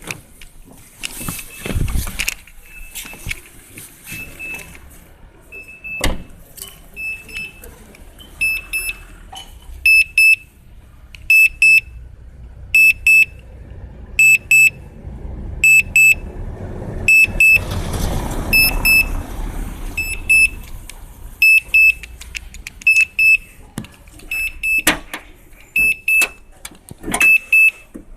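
A Suzuki Splash's electronic warning beeper sounding repeatedly, short high-pitched beeps that come singly at first and then mostly in pairs about every second and a half. It started after the battery went dead and the car was jump-started, and its cause is unknown. A few clicks and knocks are also heard.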